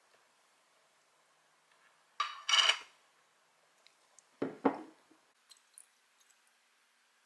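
Kitchenware being handled: a short clatter a little over two seconds in, then a couple of knocks around four and a half seconds, with a few light clicks after.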